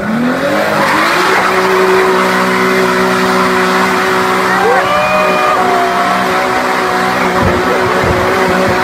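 An Audi estate car doing a burnout: the engine revs up over the first second and then holds at high revs while the spinning tyres squeal, the squeal wavering in pitch.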